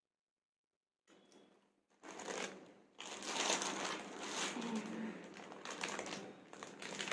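Rustling and crinkling of a paper-and-plastic jewellery packet being handled and opened, full of small clicks and taps. It starts about two seconds in, after a second of dead silence.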